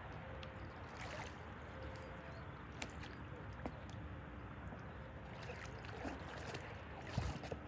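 Faint water sloshing and splashing from a hooked sturgeon thrashing at the surface close to the bank, with a few small sharp clicks.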